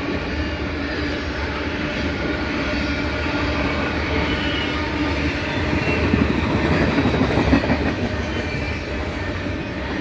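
Loaded three-bay covered hopper cars of a potash freight train rolling past at speed: a steady rumble with the clatter of wheels on the rails, a little louder about two-thirds of the way through.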